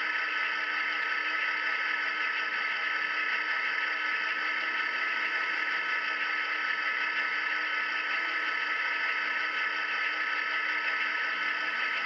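Model GP35 locomotive's sound decoder playing a steady EMD diesel idle through a small onboard speaker, thin and with no deep bass.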